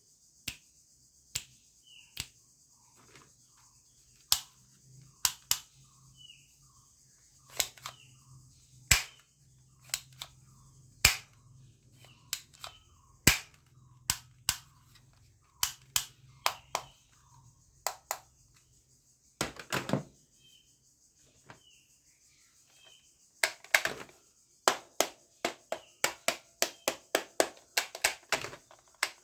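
Toy guns firing: single sharp pops about a second apart, a short rattle about twenty seconds in, then a faster run of shots near the end.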